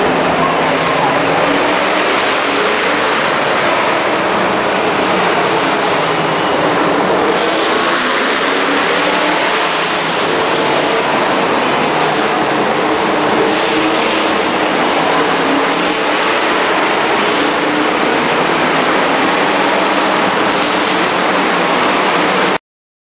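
Race car engines running on the circuit: a steady, loud engine drone that cuts off abruptly near the end.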